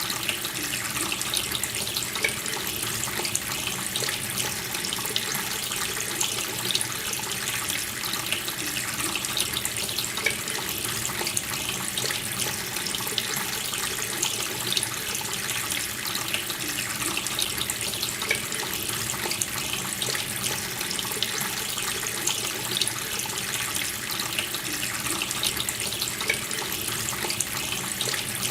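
Water running steadily from a tap, a continuous splashing flow that does not change.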